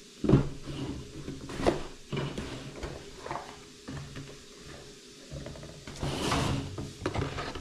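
Cardboard box being opened and handled: a few sharp knocks and clatters, then a scraping rustle about six seconds in.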